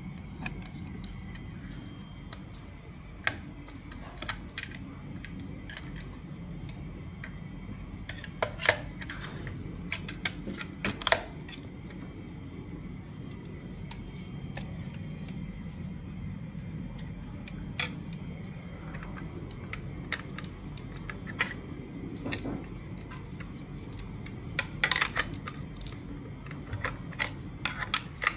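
Hands handling a plastic device casing and its battery pack: scattered small clicks and taps of plastic, over a steady low hum. A quick run of clicks comes near the end as the plastic back cover is fitted.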